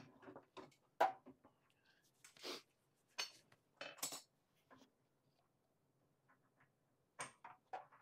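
Scattered metallic clinks and knocks of gas pipe fittings and tools being handled, with the loudest knock about a second in and a short rustle midway.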